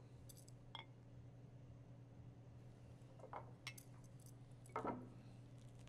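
Near silence: a steady low room hum, with a few faint clinks and knocks of tasting glasses being handled on the table, the most noticeable about five seconds in.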